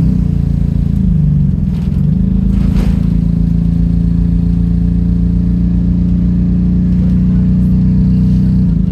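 Stagecoach London bus's rear engine heard from inside the passenger cabin, running with a loud, steady drone. Its pitch dips about a second in and comes back up a second later, then holds steady before falling again near the end.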